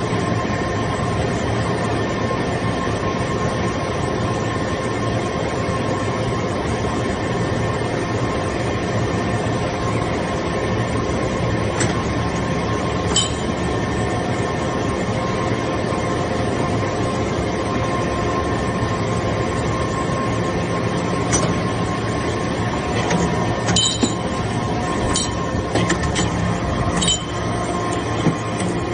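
Hydraulic metal-chip baler running: a steady mechanical hum with a few sharp metallic clinks in the second half.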